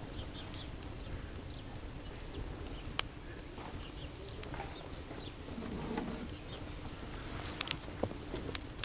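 Campfire crackling: a steady low rustle with scattered sharp pops, one about three seconds in and several close together near the end, with faint bird chirps in the background.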